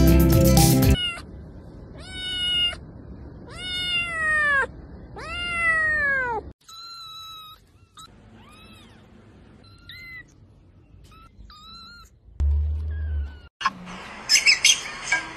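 Kittens meowing: four loud, high meows about a second and a half apart, each falling in pitch, then a run of softer, shorter mews.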